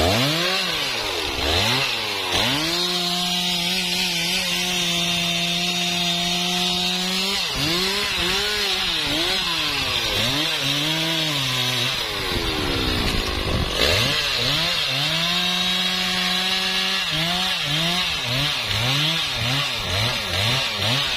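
Stihl MS 660 two-stroke chainsaw cutting through a trembesi log. The engine revs up and holds at high speed in the cut, sags and rises again several times, and near the end is throttled in quick repeated revs, about two a second.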